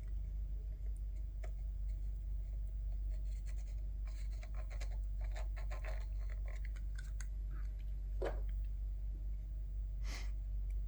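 Small plastic headset parts being handled on a workbench: light scratching and a few soft clicks, over a steady low hum.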